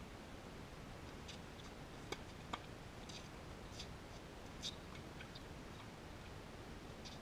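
Tennis ball being struck and bouncing on a hard court: two sharp pops close together about two seconds in, followed by several fainter ticks as the rally goes on.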